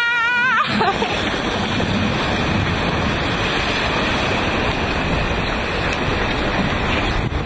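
Strong wind and rushing sea aboard a sailing yacht in heavy weather, with wind buffeting the microphone. A brief wavering high-pitched tone sounds right at the start.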